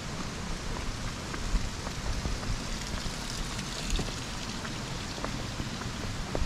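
Outdoor walking ambience: a steady hiss over an uneven low rumble of wind on the microphone, with a few faint footstep taps on wet asphalt.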